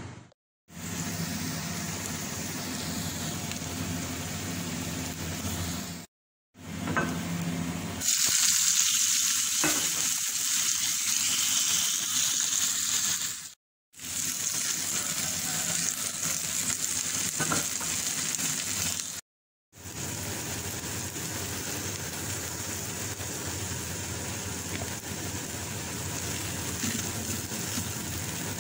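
Corn kernels sizzling as they fry in oil in a hot pan and are stirred. The sizzle drops out briefly several times and is loudest and brightest for a few seconds in the middle.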